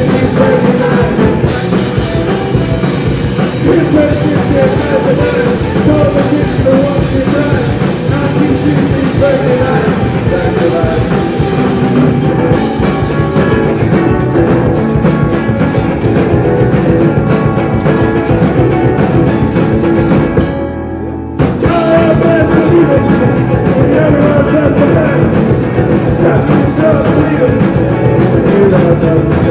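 Rock band playing live: two electric guitars, keyboard and drums, with a woman singing. The band drops out for about a second two-thirds of the way through, then comes back in.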